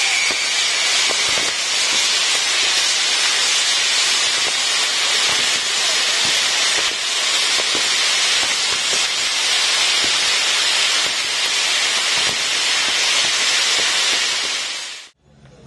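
Ground-firework wheel set piece burning: its spark fountains give a loud, steady hiss with a few faint crackles, and a whistle fades out in the first moment. The hiss cuts off suddenly near the end.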